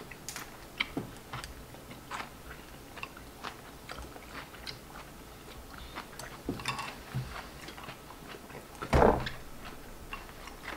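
Close-up eating sounds of two people eating noodles with chopsticks: soft chewing and small scattered clicks of chopsticks on ceramic bowls, with one louder sound about nine seconds in.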